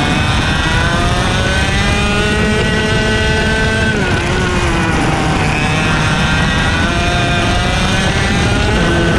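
IAME X30 125cc two-stroke kart engine at racing speed, heard from onboard. Its pitch climbs steadily, drops sharply about four seconds in as the driver lifts off for a corner, then climbs again as he accelerates out.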